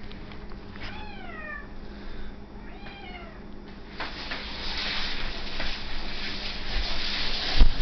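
Orange cat meowing twice: a long falling meow about a second in and a shorter one near three seconds. From about four seconds a scuffling, rushing noise builds as the cat is spun around on the vinyl floor, with a thump near the end.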